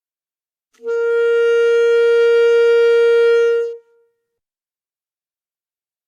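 Saxophone playing a single held note of about three seconds at a steady pitch, starting cleanly and then stopping, with a short fading tail.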